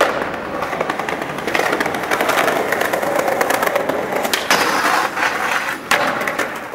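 Skateboard wheels rolling over paving in a steady rough rumble, with sharp clacks of the board striking the ground, the loudest about four and a half and six seconds in.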